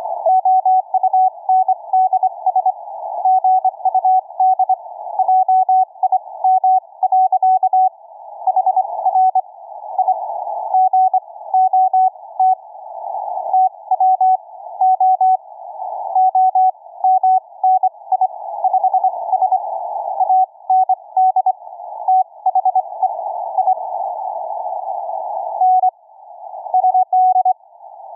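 Morse code (CW) on the 40-metre amateur band from an Elecraft K3S receiver, heard through a W3NQN passive CW audio bandpass filter: a single keyed tone sending dots and dashes over band noise squeezed into a narrow hiss around the tone.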